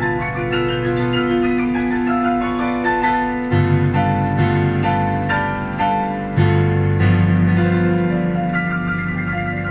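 Brass band playing: held chords with a moving melody line on top and deep bass notes that change every few seconds.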